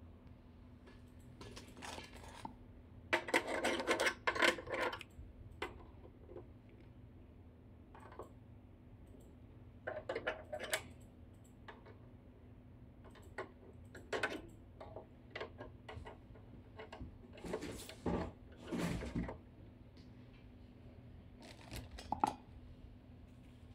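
Rubber stub antennas clacking against each other and scraping and clicking on the brass SMA connectors of a 64-port SMS modem pool as they are screwed on, in irregular bursts of clicks and rattles, the busiest a few seconds in and again past the middle.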